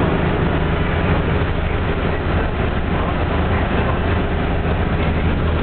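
Car driving along a road: steady engine and tyre noise with a low hum underneath.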